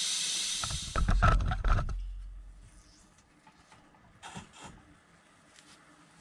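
Water and air hissing out of a well pressure tank's drain as the tank is drained down; about a second in the hiss gives way to a burst of loud sputtering knocks and rumbling, then only a few faint taps.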